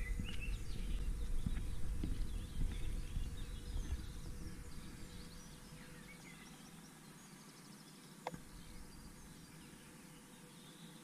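Small birds chirping and calling in woodland. In the first half there are low thuds and a rumble that die away about five seconds in, leaving only the birds. A single sharp click comes near the end.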